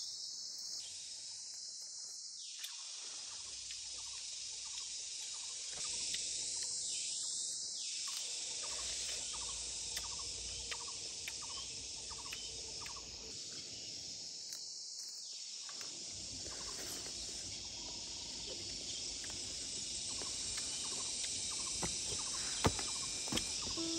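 Steady high-pitched chorus of insects in an orchard, with a faint chirp repeating a little under twice a second through the middle.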